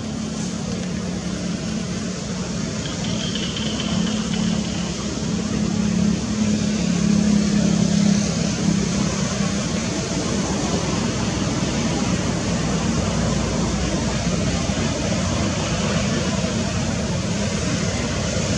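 A motor vehicle's engine hum over a steady rushing noise. It grows louder to a peak about eight seconds in, then eases off.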